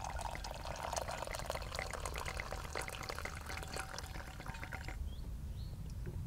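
Liquid being poured into a cup to make tea, a steady splashing trickle that stops about five seconds in. A few short bird chirps follow.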